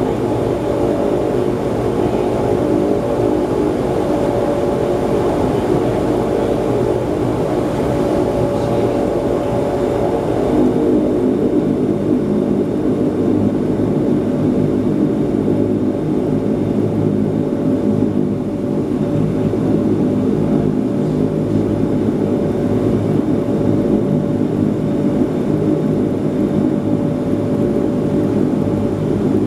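Bombardier Dash 8-300's Pratt & Whitney PW123 turboprop engines and propellers heard from inside the cabin while taxiing: a steady drone with a constant hum. About ten seconds in the higher hiss falls away and the lower tones of the drone shift.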